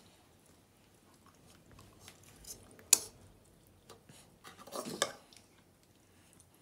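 Chopstick knocking and scraping against a soup bowl: one sharp click about three seconds in, then a cluster of knocks and scrapes a couple of seconds later.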